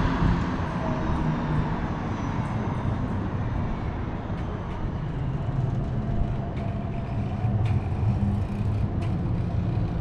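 City street traffic: a steady low rumble of passing vehicles, with a few faint clicks in the second half.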